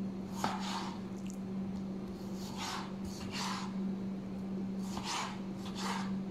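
A kitchen knife slicing raw chicken breast into cubes on a plastic cutting board: about six short strokes, coming in pairs, over a steady low hum.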